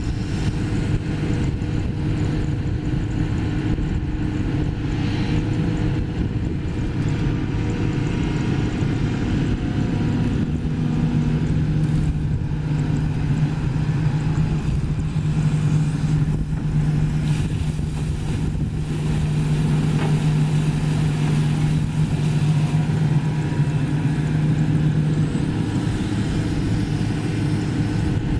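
Sany SY215C crawler excavator's diesel engine running steadily under working load. About ten seconds in, a steady low hum comes in on top of the engine and holds until near the end.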